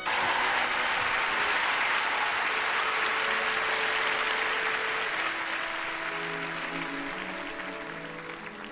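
Large audience applauding, starting suddenly and slowly fading, while soft instrumental music comes in underneath a few seconds in.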